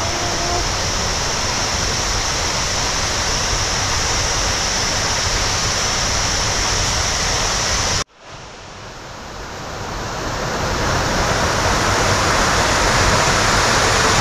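Steady rushing outdoor noise with a high hiss. At a cut about eight seconds in it breaks off, and the splash of a small waterfall cascading down a rocky gully fades in and grows louder.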